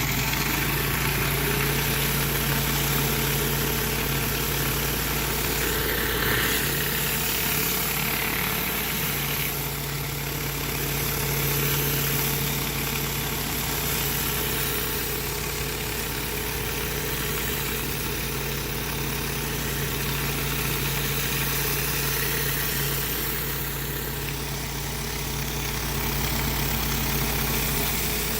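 Gas-engine pressure washer running steadily, with a constant hiss of high-pressure water spray over the engine note.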